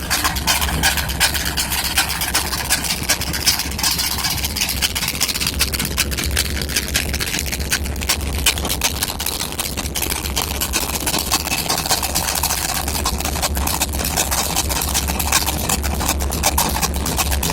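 The 408's engine idling steadily with a low hum, and a busy, uneven ticking on top throughout: the little noise it is making.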